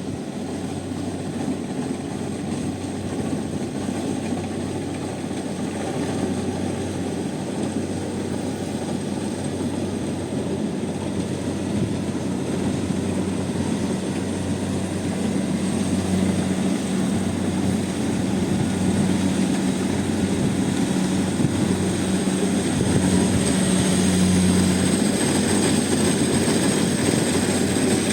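Rice combine harvester running steadily: a low engine hum with a thin high whine, growing a little louder toward the end.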